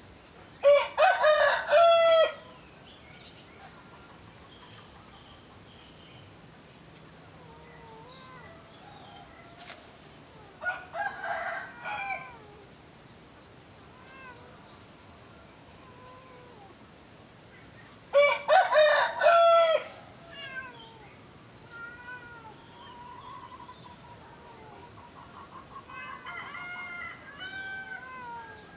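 A rooster crowing three times, about eight to ten seconds apart, the second crow fainter than the other two, with faint small-bird chirps in between.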